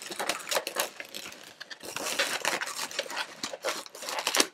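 Inflated latex modelling balloons being handled, twisted and tied off: a busy run of short rubbing creaks and clicks as a black balloon is wrapped into a wheel loop on a red balloon sculpture. A sharper click near the end is the loudest sound.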